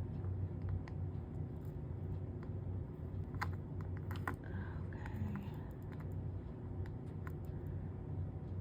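Soldering along the copper-foiled seams of a stained-glass panel: scattered light clicks and ticks of the soldering iron and solder against the glass, over a steady low hum.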